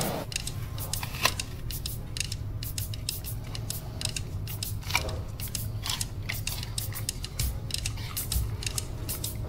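Giant panda chewing apple: a rapid, irregular run of crunching clicks over a steady low hum.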